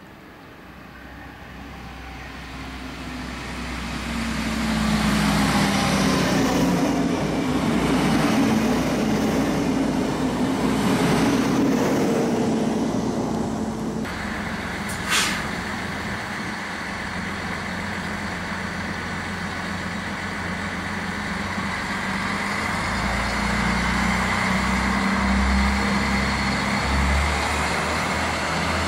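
DB Class 641 diesel railcars on the line. One approaches and passes, its diesel engine and wheels on the rails growing loud over the first five seconds. After an abrupt change, another runs into the platform, with a steady high tone, a brief sharp sound and a low engine rumble rising near the end.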